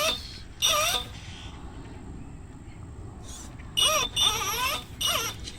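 Unsensored brushless outrunner motor of an RC crawler whining under short throttle bursts, its pitch rising and falling with the throttle: briefly about half a second in, then again for about a second and a half near the end, with quieter drivetrain noise between.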